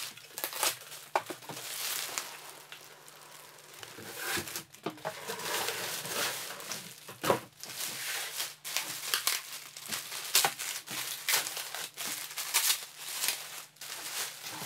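Clear plastic packaging sheet crinkling and rustling as it is pulled back and handled, with irregular sharp crackles and the odd knock as foam packing and parts are lifted out of the box.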